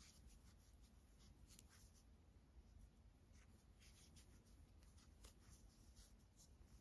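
Faint, irregular scratching and light ticking of a metal crochet hook drawing aran-weight yarn through single crochet stitches.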